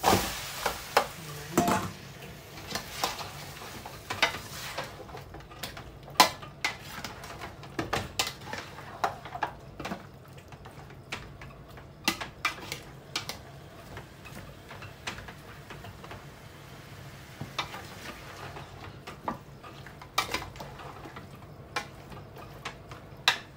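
Raw chicken pieces tipped into a hot pot of sautéed garlic and onion, sizzling, then stirred with a metal ladle that scrapes and clinks against the pot's metal sides at irregular intervals.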